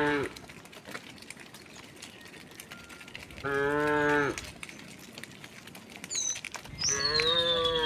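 Cattle mooing: the tail of one moo at the very start, a moo of about a second in the middle, and another beginning near the end. A bird's long whistle falls in pitch over the last moo.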